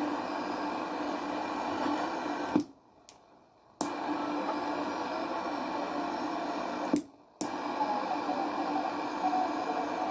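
Static and hiss from a home-built radio receiver's loudspeaker. The hiss cuts out twice, once for about a second and once briefly, with a click as it stops and as it comes back. A faint wavering tone comes in near the end.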